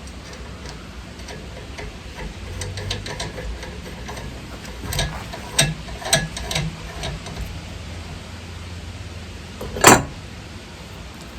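Scattered light clicks and clinks of metal parts being handled while a hub is fitted to the rear axle of an ATV, with one sharp, louder knock near the end.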